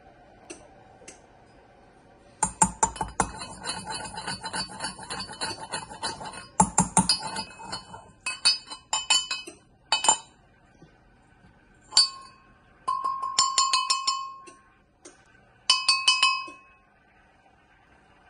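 Brass pestle grinding saffron in a brass mortar. A fast run of scraping, clinking metal strikes lasts several seconds, then shorter separate bursts of strikes follow, and the mortar rings with a clear bell-like tone after each.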